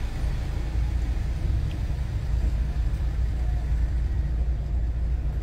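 Car engine and tyre noise heard from inside the cabin as the car drives slowly: a steady low rumble.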